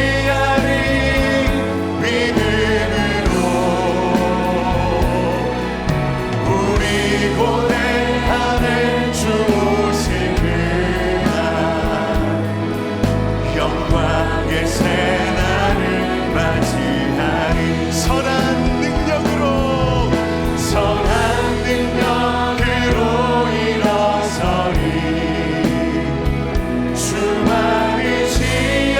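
Church worship team singing a slow Christian praise song in Korean, with instrumental accompaniment and occasional cymbal strokes.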